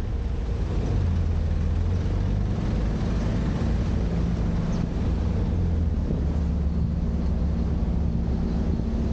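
Vehicle engine running at a steady speed: a low, even drone with steady humming tones under a noisy wash.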